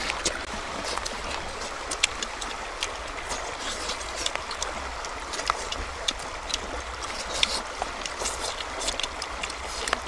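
A shallow stream rushing steadily over rocks, with scattered small clicks.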